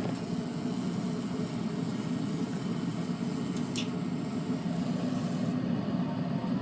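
2001 York gas furnace running, a steady low rush of burner and blower noise.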